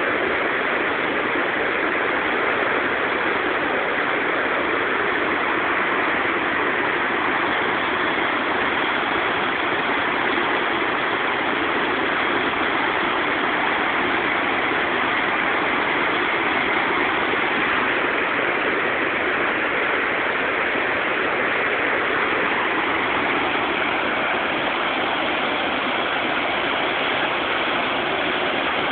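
Steady rush of whitewater pouring over the rocks and falls of Great Falls on the Potomac River.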